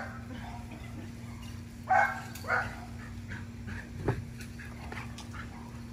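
A dog barking twice, a short bark about two seconds in and another half a second later, then a single low thump about four seconds in.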